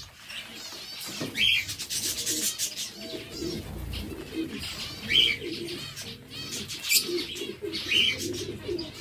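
A flock of zebra finches calling in an aviary. Continuous chatter runs under sharp, louder calls that come about every three seconds.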